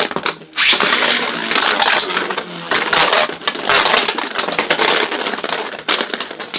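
Two Beyblade Burst spinning tops whirring and clashing in a plastic stadium: a dense, loud rattling spin with many sharp hits, starting about half a second in and easing off near the end.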